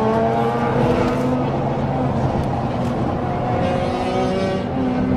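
Car engine and exhaust drone while cruising on an expressway, heard from inside the car. The steady note climbs slightly in the first second and drops a little about three and a half seconds in.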